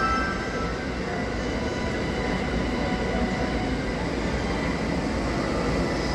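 DE10 diesel-hydraulic locomotive running light as it creeps in to stop at a platform: the steady rumble of its V12 diesel engine mixed with its wheels on the rails.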